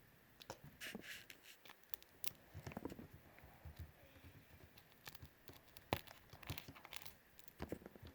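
Homemade slime being handled and stretched by hand: faint, irregular sticky clicks and crackles with a few sharper snaps.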